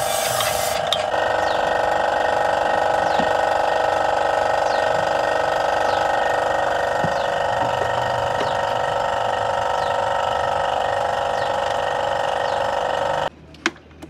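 Aerosol carb and throttle cleaner hisses briefly at the start, over a loud, steady mechanical whine. The whine runs until it cuts off abruptly near the end, leaving a couple of sharp plastic clicks as the engine cover is fitted.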